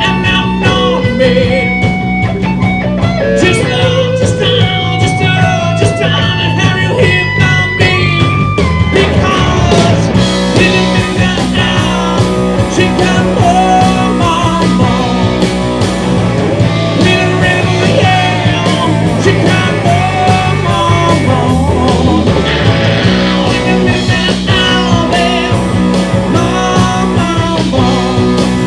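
A live rock band playing: electric guitar over a steady electric bass line and a drum kit.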